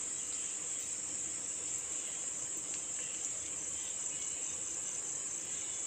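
Crickets chirring in the background: a steady, unbroken high-pitched trill.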